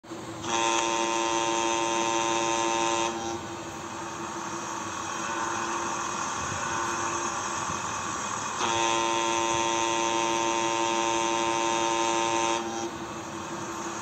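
Boat's air horn sounding two long, steady blasts about five seconds apart, the second longer, over a continuous rushing of engine and water.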